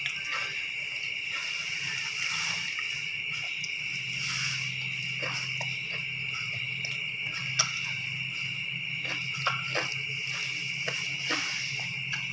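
Steady high-pitched chirring of insects over a low hum, with scattered small clicks and smacks of someone eating by hand from a glass plate; the sharpest click comes about seven and a half seconds in, and a few more follow a couple of seconds later.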